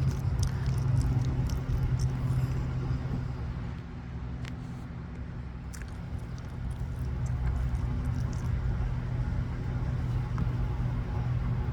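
Steady low mechanical hum of a running motor or engine, with a few faint clicks now and then.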